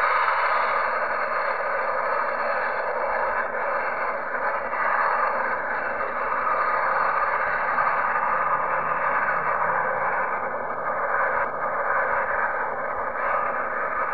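Steady roar of a Boeing 737's twin jet engines on the runway at takeoff power, heard from a distance through a phone microphone.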